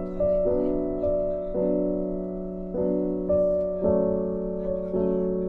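Background piano music: slow chords struck every half second to a second, each left to ring and fade.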